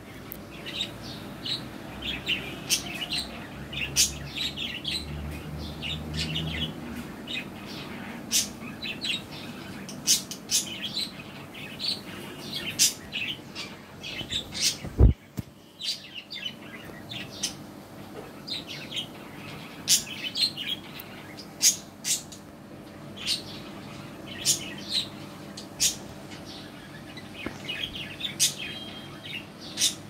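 Caged budgerigars chirping in many quick, short, high calls, with sharp clicks scattered throughout and one loud knock about halfway through.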